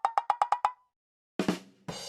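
Stock sound effects: a quick run of short, pitched knocks, speeding up slightly, that stops under a second in. Two low drum hits follow, and a brass note begins right at the end.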